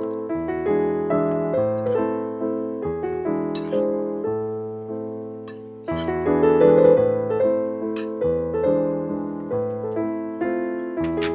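Background piano music: a melody played over bass notes that change about once a second.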